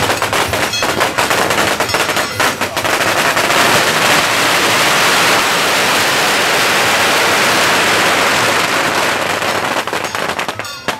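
A long string of firecrackers going off in rapid crackling bangs. Separate cracks in the first few seconds thicken into a dense, unbroken crackle, which thins out into scattered bangs near the end.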